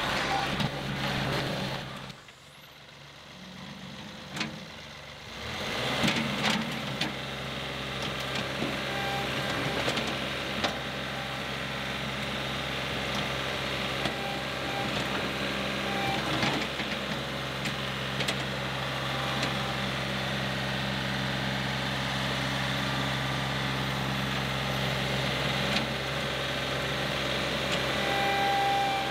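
John Deere 2038R compact tractor's three-cylinder diesel engine running steadily while its front-loader bucket digs into sod. The engine sound drops low for a few seconds about two seconds in, then comes back.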